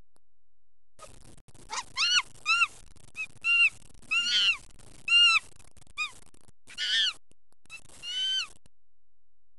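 A string of about a dozen short, high-pitched, monkey-like hooting calls, each rising and falling in pitch and irregularly spaced, starting about a second in.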